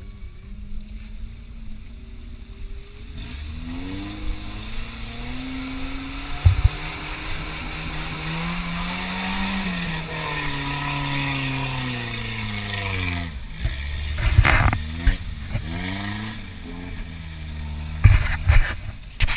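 Off-road vehicle engine revving on a dirt track. Its pitch climbs for several seconds, then falls away, followed by a few heavy thumps near the end.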